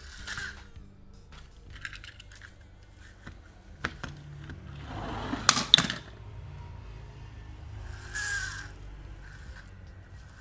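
Plastic toy monster trucks clicking and scuffing as they are handled and set down. About five seconds in comes a louder rattling clatter of toy cars shifting against each other in a cardboard box, and a short scrape follows near the end.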